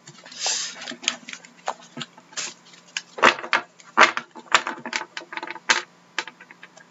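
Trading cards being handled and stacked on a wooden desk: a string of irregular clicks and taps as cards are squared and set down, with a short brushing slide about half a second in.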